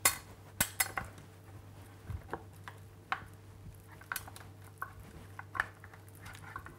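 A metal fork clinking and knocking against a tray while raw lamb cutlets are turned in olive oil: irregular sharp clicks, some close together, over a faint steady hum.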